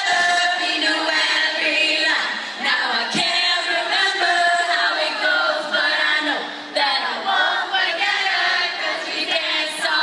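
Female vocal group singing a cappella in harmony into handheld microphones, several voices holding sustained notes together, with no instruments.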